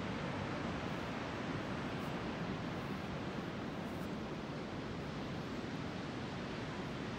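Steady rushing wash of ocean surf, even and unbroken, with no single wave standing out.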